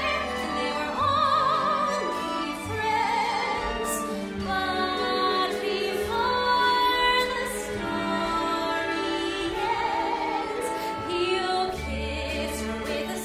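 A woman singing a musical-theatre song with a wide vibrato, accompanied by a pit orchestra.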